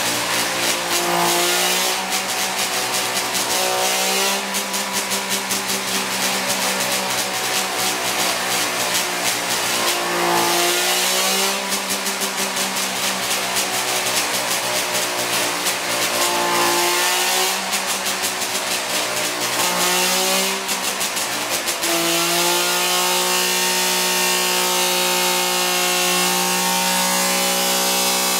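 DKW 1000cc three-cylinder two-stroke race engine running on a dynamometer. Its speed dips and picks up again several times, with a rapid crackle over long stretches. It then settles into a steady, higher-pitched run for the last several seconds.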